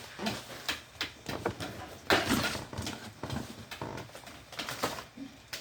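Irregular knocks and rustling from packed items being handled and pulled out of a box.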